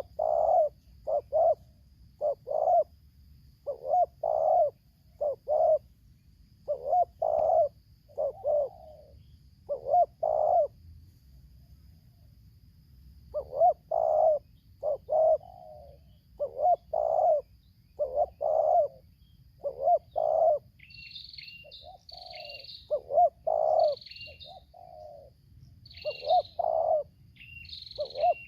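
Spotted doves cooing in repeated phrases of short, low coo notes, with a pause of a couple of seconds a little before halfway. From about three-quarters of the way in, a smaller bird chirps in short, high notes between the coos.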